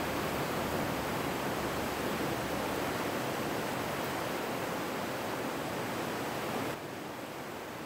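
Steady rushing roar of a river in heavy flood, an even noise with no distinct events. It drops abruptly to a lower level near the end.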